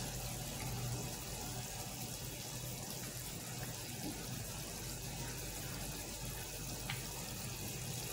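Faint steady hiss with a low hum underneath, with no distinct events.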